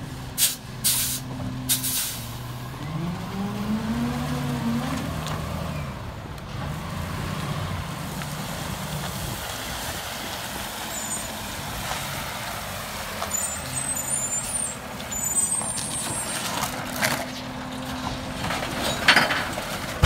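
Freightliner M2 106 rear-loader garbage truck's diesel engine revving up and easing off as the truck moves between stops, with air-brake hisses. There are sharp metal bangs from the hopper and carts near the start and again near the end.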